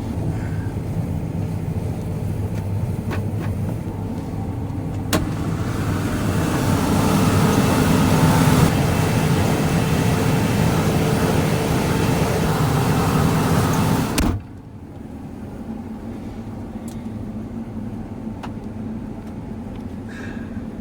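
John Deere combine running while harvesting, heard from inside the cab as a steady engine and machinery drone. There is a sharp click about five seconds in, and the sound then grows louder and noisier. About fourteen seconds in it drops abruptly to a quieter steady hum.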